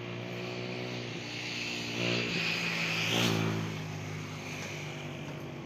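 A motor vehicle's engine running nearby, growing louder about two seconds in and peaking around three seconds, like a vehicle passing by, then easing off.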